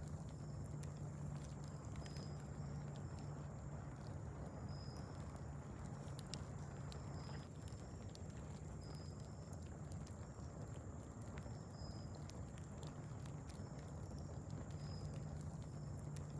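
Wood fire crackling faintly with sparse sharp pops, over a steady low hum. A short high chirp repeats about once a second.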